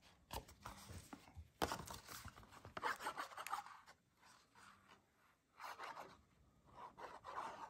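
Faint scratchy rubbing of a liquid glue bottle's fine tip drawn across the back of a cardstock panel in several short strokes, after a few clicks and crinkles of the card being handled and bent.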